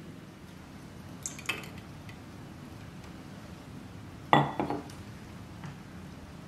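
Tableware clinking: a couple of light clicks about a second and a half in, then a louder ringing metal-and-glass clink with two small after-knocks a little past four seconds in, as the stovetop moka pot is lifted from beside the glass cup.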